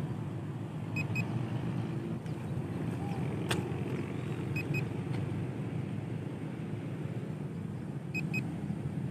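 Steady low rumble, with a pair of short high beeps repeating about every three and a half seconds and one sharp click near the middle.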